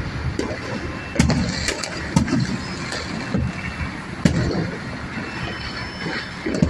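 Fireworks going off: a string of sharp bangs, roughly one a second, over a continuous low rumble, with faint high whistles in the second half.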